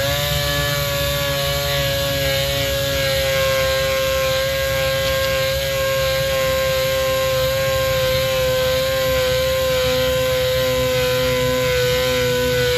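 Power sander running steadily with a high whine over a hiss, sanding curb rash out of an alloy wheel rim.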